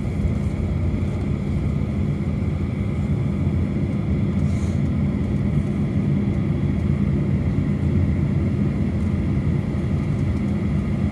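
Boeing 737 cabin noise with the CFM56 engines at idle: a steady low rumble with a faint high whine above it.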